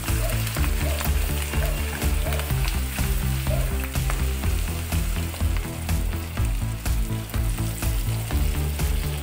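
Browned chicken pieces sizzling and frying in a pan of mushroom and onion sauce as they go in, over background music with a steady beat.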